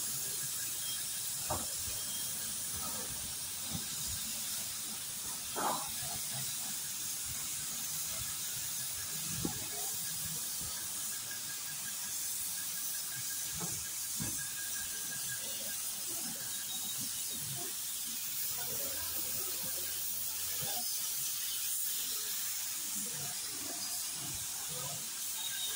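Compressed-air paint spray gun hissing steadily as it sprays paint onto a car body panel, with a few faint knocks.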